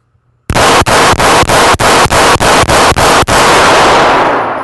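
A rapid string of about ten semi-automatic pistol shots, roughly three a second, fired two-handed at a steady pace. The reports echo in an indoor range and die away about a second after the last shot.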